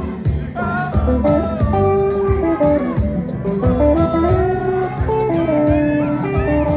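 Live band playing an instrumental improvisation: a lead melody with sliding, bent notes, most likely electric guitar, over bass and drums.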